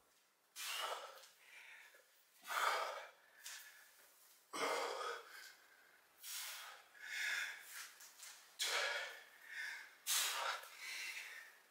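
A man breathing hard under exertion during a kettlebell set: sharp, noisy breaths about every one to two seconds, each a short rush of air.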